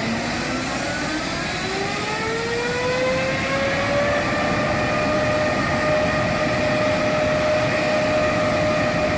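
Turbofan engines of a Boeing 747 testbed carrying a GE9X, spooling up. A whine rises in pitch and levels off about four seconds in, then holds steady over a constant rush of jet noise.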